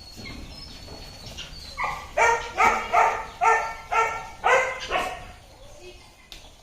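An animal calling repeatedly: about seven short, loud calls in quick succession, starting about two seconds in and stopping after about three seconds.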